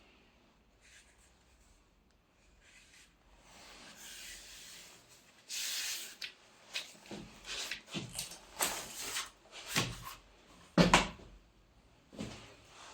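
Handling noises: a series of short rubbing, sliding and scraping sounds with small knocks, getting busier about halfway through, and one loud knock near the end.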